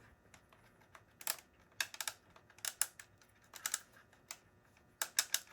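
Small plastic parts being handled and fitted together by hand: irregular light clicks and rattles in small clusters.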